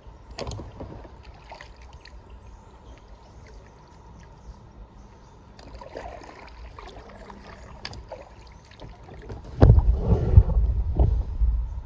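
Packraft paddling on calm water: scattered light splashes, drips and knocks of the paddle and raft. Near the end comes a louder stretch of about two seconds with a low rumble.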